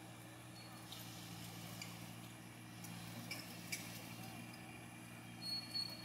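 Outdoor ambience: a steady low hum under faint scattered ticks, with a short high whistled bird note near the end.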